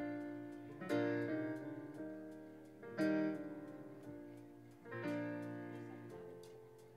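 Yamaha electric keyboard playing slow sustained chords, three struck about two seconds apart, each left to ring and fade.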